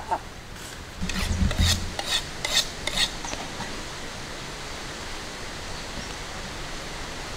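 About six short rasping scrapes over the first three seconds, with a low thump among them, then a steady even hiss.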